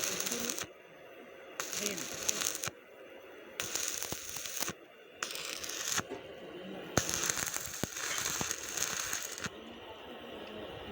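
Electric arc welding crackling and sizzling in several short runs, the arc stopping and starting again about five times.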